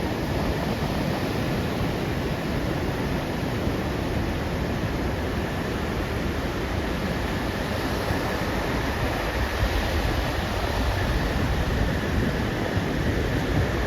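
Pacific Ocean surf washing onto the beach in a steady, continuous hiss of breaking waves. In the second half a few low gusts of wind buffet the microphone.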